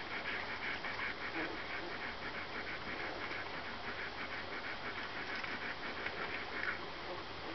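Newborn borzoi puppies nursing, making a fast run of small high squeaks, several a second, that stops shortly before the end.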